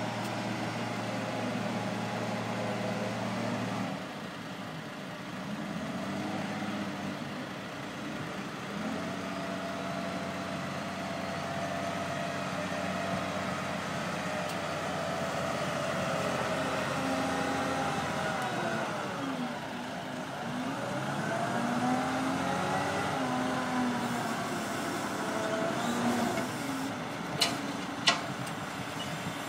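O&K L25 wheel loader's diesel engine running under work, its revs rising and falling again and again. Two sharp knocks near the end.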